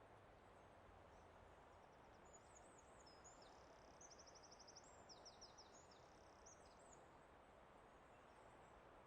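Faint songbird singing: high chirps and quick trills for a few seconds in the middle, over a steady soft hiss of outdoor ambience.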